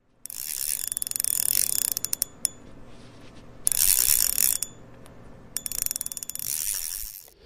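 A ratcheting mechanism clicking very fast in three bursts, the first and last a second or more long and the middle one shorter, with quieter gaps between.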